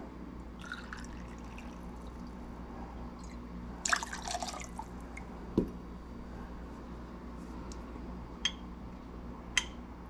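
Rum poured into a stainless steel jigger and tipped into a glass mixing glass, with a short splash about four seconds in. A knock follows, then two light metallic clinks of the jigger near the end.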